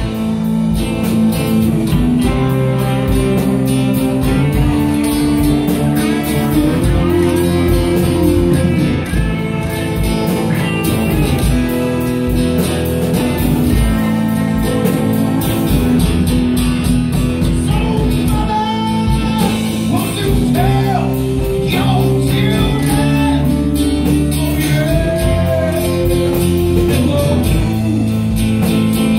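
Live band playing: electric guitars, bass and a drum kit with a steady beat, with singing.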